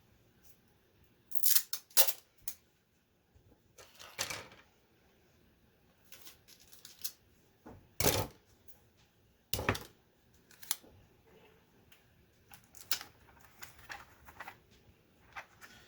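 Parts of a Commodore 64 keyboard being handled and fitted during reassembly: scattered sharp plastic clicks at irregular intervals, with two heavier knocks about eight and ten seconds in.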